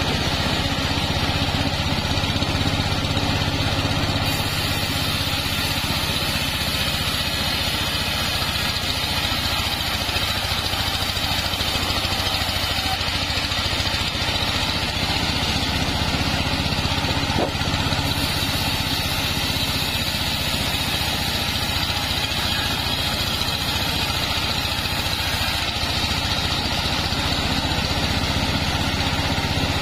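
Engine-driven sawmill running steadily while its blade rips lengthwise through a sengon log, the engine's hum under the hiss of the cut.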